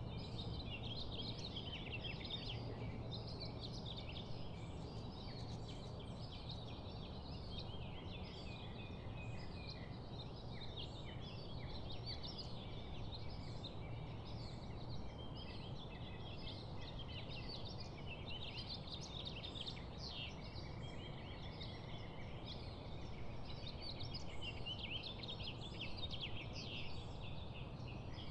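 Rainforest ambience: a continuous, dense chorus of chirping bird calls over a low steady hum.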